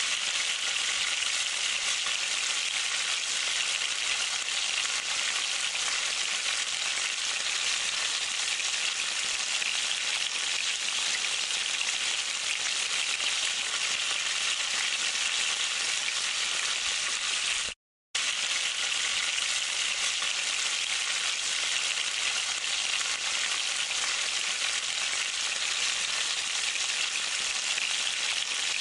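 Chicken pieces frying in oil and spiced masala in a pan: a steady sizzle that cuts out briefly about 18 seconds in.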